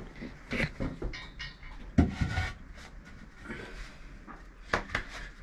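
Knocks and scraping as an aerated concrete (Ytong) block is handled and set down onto a mortar bed, with the sharpest knock about two seconds in.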